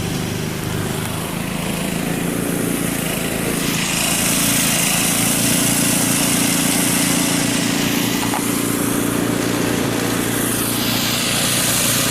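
Small engine running steadily, with a rushing hiss that grows louder about four seconds in.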